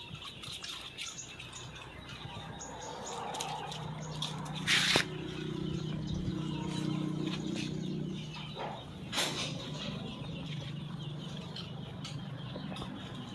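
Outdoor background of small birds chirping, with two short, loud rushing noises about five and nine seconds in, and a low steady hum through the middle.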